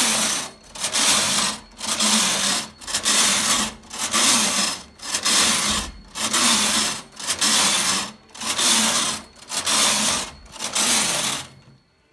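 Brother KH-881 punchcard knitting machine: the carriage is pushed back and forth across the needle bed, one pass about every one and a half seconds, with a brief gap at each turn. It is knitting a two-colour pattern row by row from the punchcard. It stops near the end.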